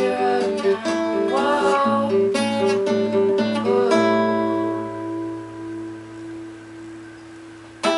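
Acoustic guitar strumming a cover song with a voice singing, then the last chord held and slowly dying away over about four seconds. A sudden sharp strum near the end.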